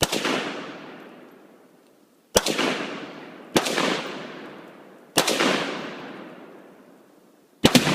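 Rifle shots: a string of sharp reports at uneven intervals, the last two in quick succession, each followed by a long rolling echo.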